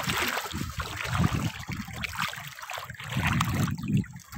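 Seawater sloshing and splashing irregularly around someone wading through the shallows, in uneven swishes that swell louder about three seconds in.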